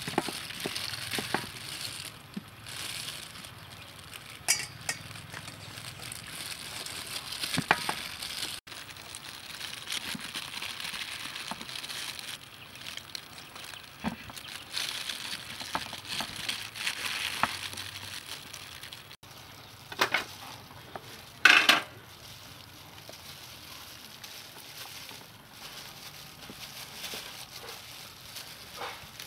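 Hands-on food preparation sounds. A knife works through peeled bananas on a metal tray with small scattered knocks. Then there is a wet, hissy squelching as grated coconut is squeezed by hand through a wire-mesh strainer into a steel bowl. About two-thirds of the way through come two sharp clinks, the second the loudest sound.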